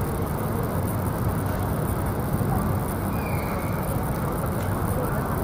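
Steady outdoor city ambience: a low, even rumble of distant road traffic, with a faint brief high squeak about halfway through.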